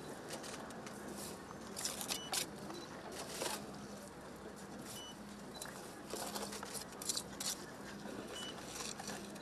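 Faint scrapes and clicks of a steel trowel scooping wet mortar in a plastic basin and spreading it on concrete blocks, over quiet outdoor background noise.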